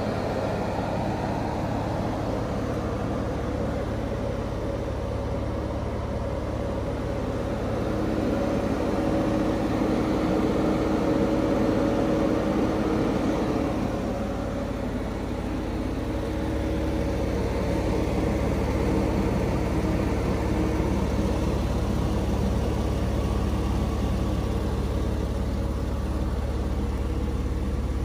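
Porsche 911 (996) Carrera's 3.6-litre flat-six engine idling steadily.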